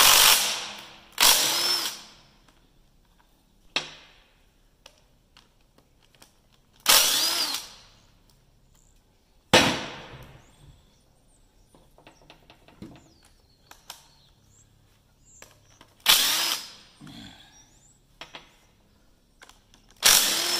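Cordless impact driver with a socket running in six short bursts of about a second each, a pair near the start and the rest spaced a few seconds apart, backing bolts out of a John Deere 2010 tractor's cast rear-end housing. Small metal clicks and clinks come between the bursts.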